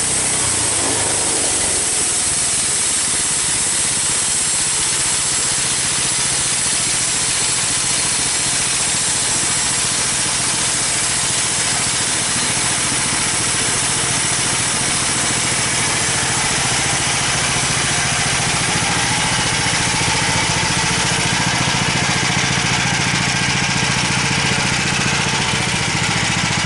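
Homemade band sawmill's engine running steadily with a broad hiss from the blade; the engine note drops about a second in and stays lower. The operator thinks the blade has hit a nail in the log.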